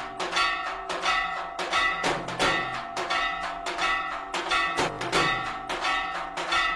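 Temple aarti percussion: bells and drums struck in a steady beat about twice a second, the bells ringing on between strikes.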